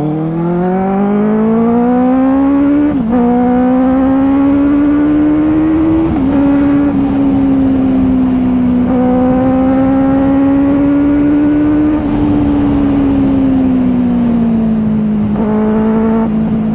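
Benelli 600i inline-four motorcycle engine with dual SC Project exhausts, under acceleration. Its pitch climbs steadily and drops a little at upshifts about three and six seconds in, then holds steady and eases off near the end.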